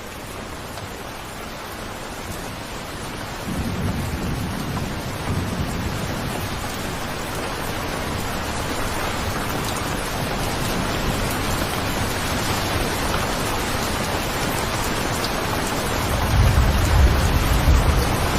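Steady rain with thunder, growing slowly louder. A deep rumble of thunder rolls in about three and a half seconds in, and a heavier one comes near the end.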